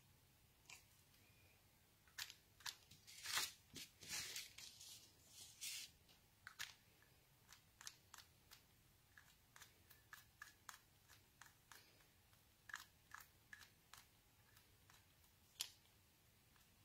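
Faint clicks and taps of plastic pens knocked together and handled over a card panel, the way Wink of Stella glitter brush pen ink is spritzed onto the card. A denser run of scratchy, crunchy handling sounds comes a few seconds in, then single ticks at irregular gaps.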